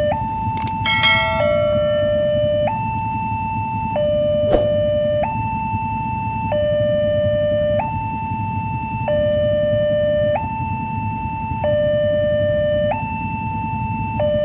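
Railway level-crossing warning alarm from horn loudspeakers on the crossbuck: two electronic tones, one high and one low, alternating about every second and a quarter, signalling that a train is approaching and the barriers are down. A steady low rumble runs underneath, with a short ring about a second in.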